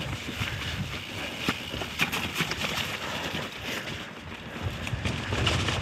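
Mountain bike rolling over a rough trail: tyre noise on dirt and stones with frequent clicks and rattles from the bike, and wind on the microphone. The low rumble grows louder near the end.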